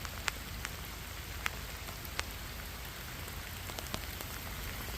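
Steady rain falling, with a handful of louder single drop taps standing out.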